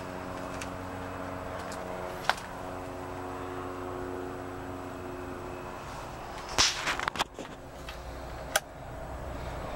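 Handling noises in the cab of a small truck: a run of knocks and clatter about two-thirds through, then a sharp click as the ignition key goes in and is turned, over a steady hum.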